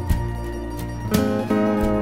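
Background music led by acoustic guitar, with new notes struck about a second in.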